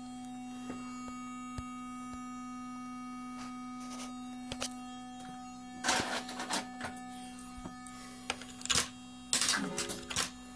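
Steady electrical hum and whine from a sound system, the kind of fault a sound problem points to, broken by scattered clicks and, from about six seconds in, short loud bursts of crackling noise.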